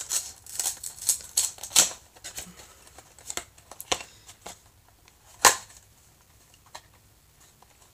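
A small cardboard blind box and its plastic packaging being opened and handled: a quick run of crisp clicks and crinkles, thinning out, with one sharper click about five and a half seconds in before it goes nearly quiet.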